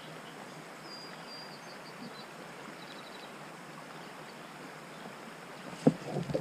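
Steady, quiet outdoor river ambience, an even hiss of moving water and air, with a few faint high chirps about one and three seconds in. Near the end come a couple of sudden sharp knocks as the rod is raised into a strike.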